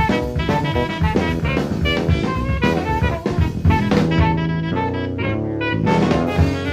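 Live jazz trio playing: alto saxophone lines over drum kit and Fender Jazz electric bass. About four seconds in the drums drop back for roughly two seconds, leaving sax and bass, then come back in.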